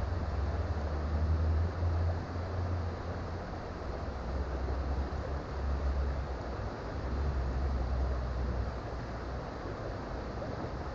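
Creek water flowing steadily, a constant rushing with a low rumble underneath that swells and fades every second or two.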